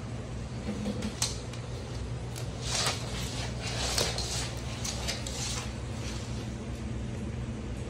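Green iguana's claws clicking and scratching on a hard surface in a string of short, sharp bursts through the middle few seconds, over a steady low hum.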